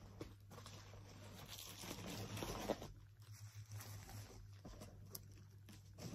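Faint rustling and crinkling of bubble wrap being handled as a wrapped plastic model horse is lifted out of a cardboard box, with a sharper rustle or knock about two and a half seconds in.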